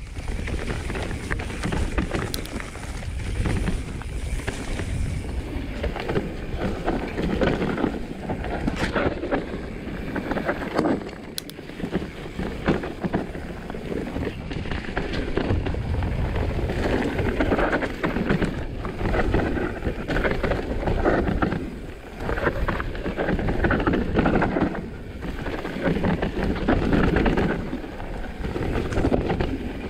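Norco Sight full-suspension mountain bike descending a steep dirt trail at speed: a continuous rough rumble of tyres over dirt, leaf litter and roots, with bike rattle, a few sharp knocks, and wind buffeting the microphone.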